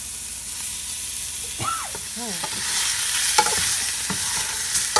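Lemongrass, shallots and herbs sizzling in oil in a metal stockpot while a metal spoon stirs them, clicking against the pot a few times near the end. The sizzle grows louder a little past halfway as raw catfish pieces are stirred in.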